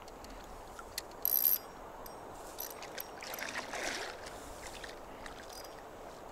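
Water splashing and sloshing as a hooked grass carp is played near the surface. There is a click about a second in and a short high-pitched buzz just after it.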